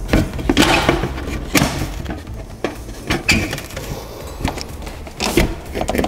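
A thin sheet-metal panel being pushed and fitted into a window frame: irregular knocks, taps and scrapes of metal against the frame, with a few sharper clicks.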